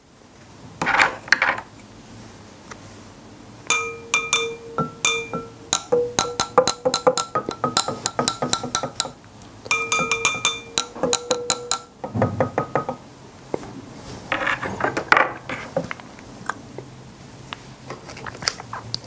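Straws or stir sticks knocking against drinking glasses, in quick runs of glassy clinks with a ringing tone, heaviest in the middle stretch.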